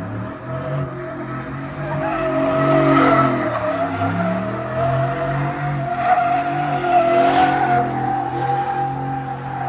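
Tyres spinning on pavement in a continuous squeal, with the engine revving underneath as a vehicle does a burnout.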